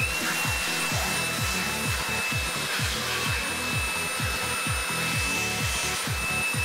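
Vacuum cleaner starts suddenly and runs with a steady high whine and rushing air. Its nozzle is sucking up tungsten carbide grinding dust from the machined block.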